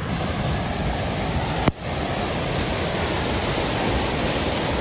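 Muddy floodwater rushing in a flooded channel: a loud, steady rush of water noise. A click and a brief dip just under two seconds in mark a cut from one recording to another.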